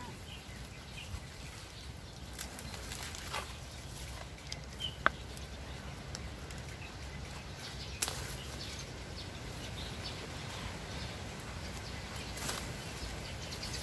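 Lemongrass leaves rustling as stalks are picked from the clump, over a steady low wind rumble on the microphone. Two short sharp clicks come about five and eight seconds in.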